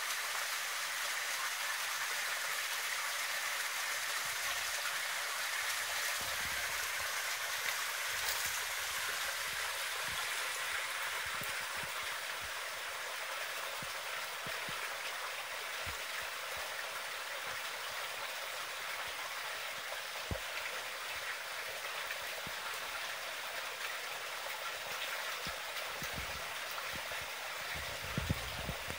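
Water running into a garden koi pond: a steady, even trickling and splashing, a little louder in the first few seconds, with a couple of faint taps near the end.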